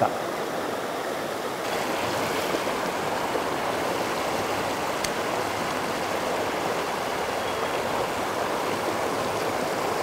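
Mountain stream flowing: a steady rush of running water, a little louder after about two seconds.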